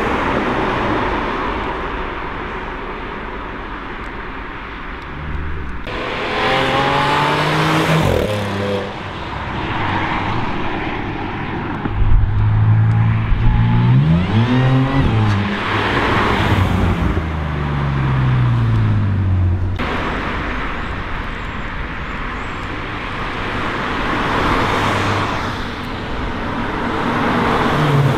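Several Audi cars driving past one after another, their engines accelerating as they go. The loudest pass comes around the middle, with the engine note rising and then falling away, and another car draws near at the end.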